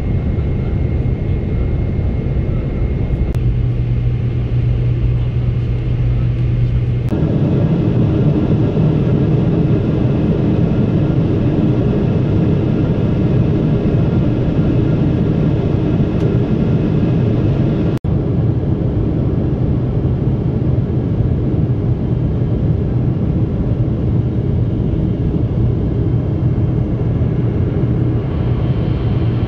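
Steady cabin rumble of a Boeing 777-300ER in flight: its General Electric GE90 engines and the rushing airflow, heard from a window seat beside the engine during the descent. Its tone shifts abruptly about 3 and 7 seconds in, and it cuts out for an instant about 18 seconds in.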